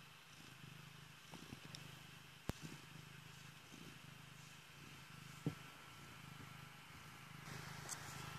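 Domestic cat purring steadily and faintly while being stroked, with two sharp knocks about two and a half and five and a half seconds in.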